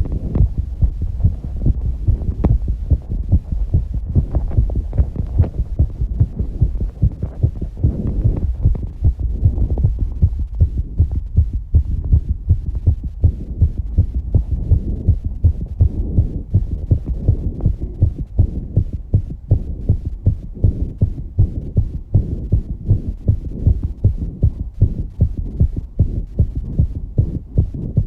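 A young woman's fast heartbeat heard up close: a steady, even run of low thumps, about two a second, over a low hum.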